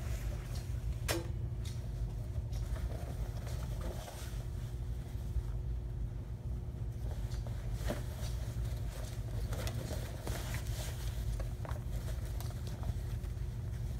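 Denim jacket rustling as it is handled and pulled on, with a few light clicks, the sharpest about a second in, over a steady low background hum.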